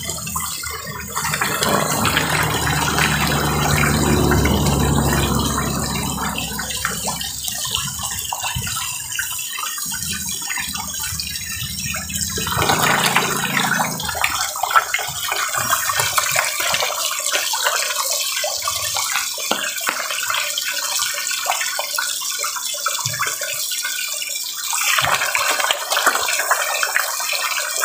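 A crowded school of red tilapia thrashing at the water surface as they feed on pellets: a continuous churning splash with constant small slaps and plops.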